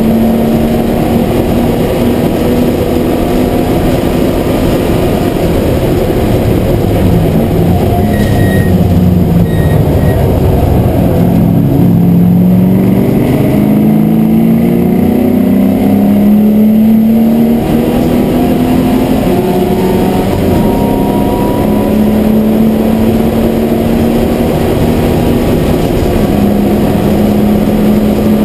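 MGB GT V8 race car's V8 engine heard from inside the cabin, running hard at high revs. In the middle the pitch falls and climbs again in several steps as the car slows for a corner and accelerates back up through the gears, then it holds a steady high note again near the end.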